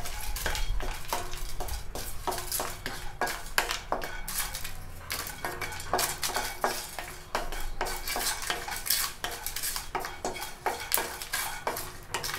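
Wooden spatula scraping and tapping around a nonstick kadai while whole spices (cinnamon sticks, star anise, bay leaf) are dry-roasted without oil, the hard pieces rattling across the pan bottom. Quick, irregular clicks and scrapes, several a second.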